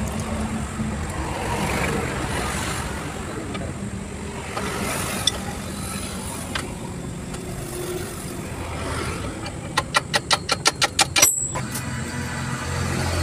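A vehicle engine idling nearby as a steady low hum, with faint metal clinks as a truck's clutch cover assembly is handled. Near the end comes a quick rattling run of about a dozen clicks that cuts off sharply.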